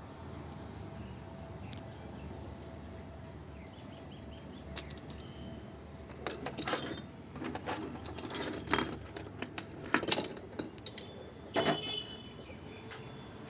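Small metal tools being handled: a run of light metallic clicks, clinks and rattles lasting several seconds, loudest around the middle, over a faint steady hum.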